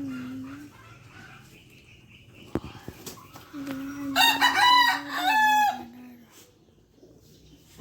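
Rooster crowing: the end of one crow at the start, then a loud, long crow about halfway through. A sharp click comes just before it.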